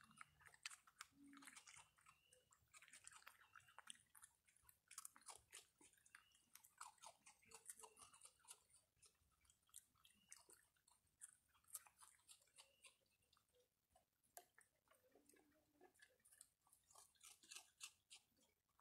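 Raccoons chewing and crunching food close up: a faint, irregular run of small crisp crunches and clicks.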